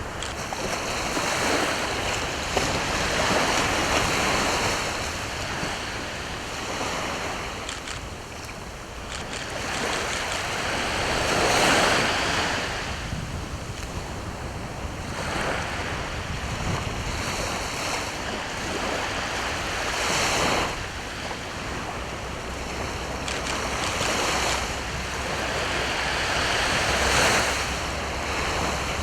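East Sea waves breaking on the shore, the wash of surf swelling and fading in repeated surges every four to eight seconds.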